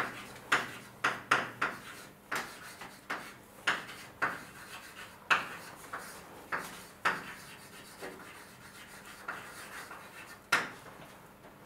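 Chalk tapping and scraping on a blackboard as someone writes: an irregular string of short, sharp strokes, about one or two a second.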